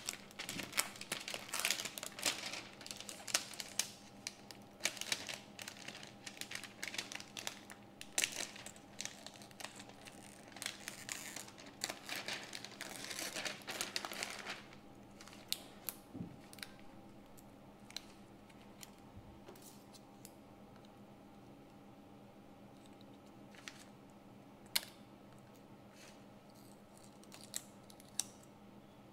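A blade cutting and scraping polariser film on an LCD panel, with the plastic film crinkling: dense scratchy strokes for about the first fourteen seconds, then only occasional small clicks and taps.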